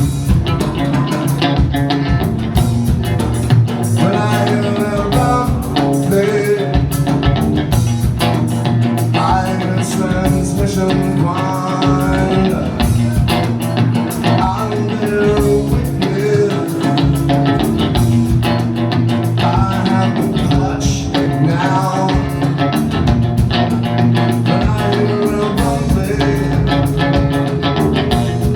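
Live band music: an instrumental stretch of a rock song played over a steady beat.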